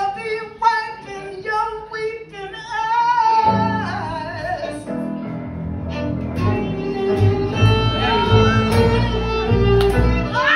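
Live soul band with a singer. Short sung phrases with gaps come first; about three and a half seconds in, the band fills in under held notes, with a strong upright bass line.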